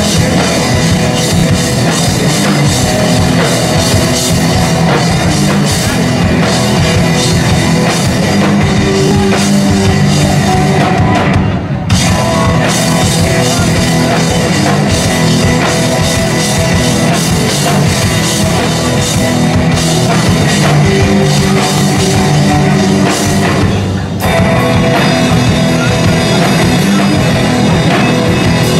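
Heavy metal band playing live and loud, with electric guitar and drum kit. The music breaks off for a moment twice, about twelve and twenty-four seconds in.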